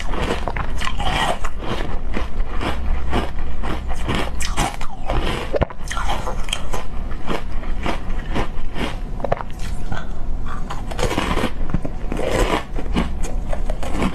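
Frozen green tea (matcha) ice being bitten and chewed, a dense run of loud, irregular crunches close to the microphone.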